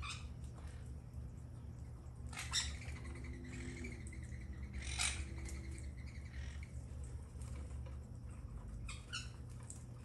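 Monk and nanday parakeets giving short, harsh squawks now and then, loudest about two and a half and five seconds in, over a steady low rumble.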